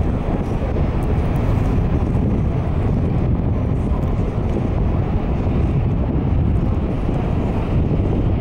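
Wind blowing across the microphone on a moving ship's open deck: a steady low rumble with no let-up.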